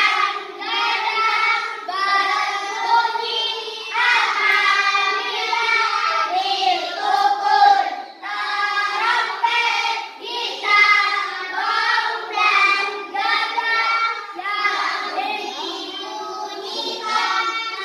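A group of children singing together in unison, in continuous phrases with no break.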